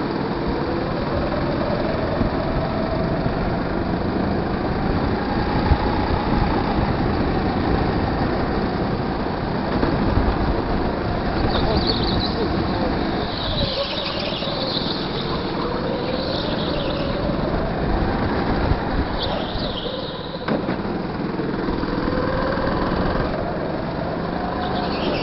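Go-kart engine running, heard from on board, its pitch rising and falling as the kart speeds up and slows for the corners. Short tyre squeals come several times in the second half.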